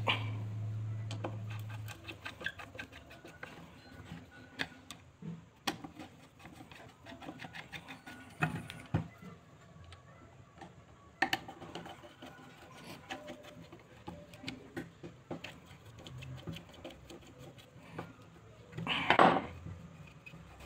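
Electric hand planer's motor humming as it winds down, dying away about two seconds in. Then scattered small clicks and knocks of a screwdriver and hands on the planer's metal body and drive belt, with a brief louder rush of noise near the end.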